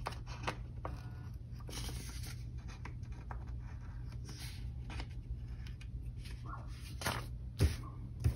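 Scissors trimming the overhanging edges of stickers on a paper planner page: scattered snips and paper rustles, with a couple of sharper clicks near the end.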